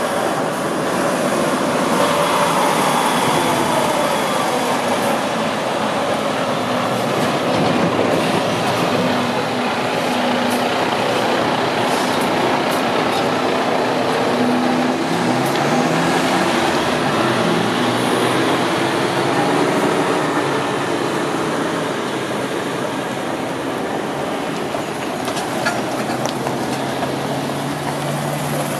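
Heavy-haulage lorry, a diesel tractor unit pulling a multi-axle low-loader trailer, driving slowly past close by: steady engine and tyre noise, loudest as it goes by.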